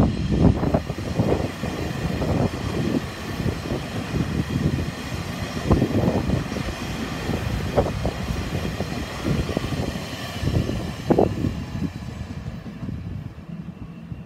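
Puyuma Express TEMU2000 tilting electric multiple unit passing at speed: a steady rumble with repeated wheel knocks, fading away over the last couple of seconds as the train draws off.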